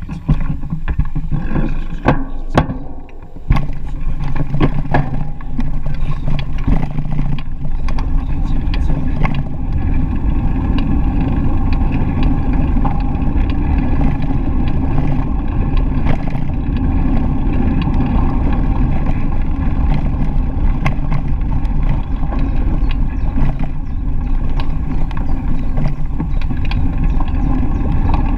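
Bicycle riding along a path, heard from a GoPro: a steady low rumble of tyres and wind on the microphone. Several knocks come in the first few seconds before the riding noise settles in.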